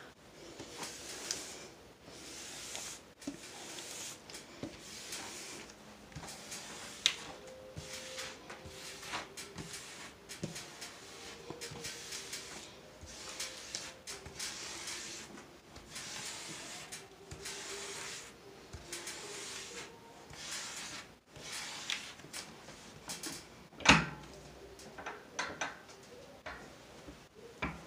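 Hands handling and smoothing the plastic protective film over a large diamond painting canvas: soft rustling and crinkling with scattered clicks, and one louder knock near the end.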